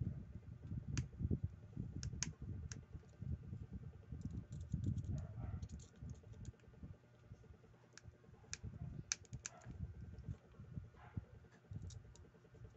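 Small metal parts and a screwdriver clicking and tapping against a spinning reel's body during hand assembly, in irregular light clicks over a low rumble of handling.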